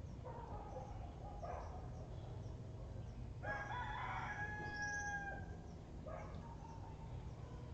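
A rooster crowing once, one long call of nearly two seconds in the middle, with shorter calls from the bird before and after it.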